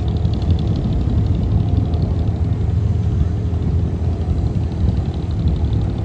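An abra water taxi's diesel engine running steadily with a low rumble, heard from on board the boat.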